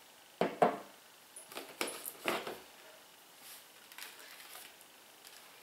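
A few short knocks and light rustles of products being handled in a cardboard box, as a boxed scented candle is lifted out; most of the knocks come in the first half.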